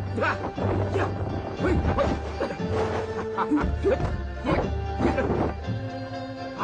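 Kung fu film soundtrack music with a steady bass line, with sharp strike sound effects laid over it at irregular moments.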